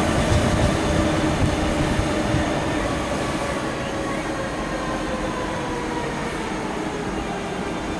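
DB Class 146.5 electric locomotive and its Intercity double-deck coaches pulling away. An electric whine of several steady tones that slowly falls in pitch sits over rolling noise, and the whole sound fades as the train moves off, echoing under the station's train shed.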